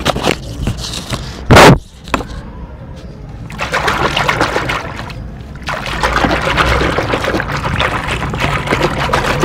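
A hand churning and squeezing fine sand in foamy water in a plastic basin: crackly splashing and sloshing that starts about three and a half seconds in and, after a short break, runs on, busy and dense. A short, very loud burst comes about one and a half seconds in.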